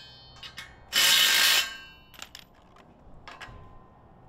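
Cordless impact driver hammering in one short burst about a second in, driving a half-inch concrete anchor through a steel fence post's baseplate into the concrete slab, followed by a few faint clicks.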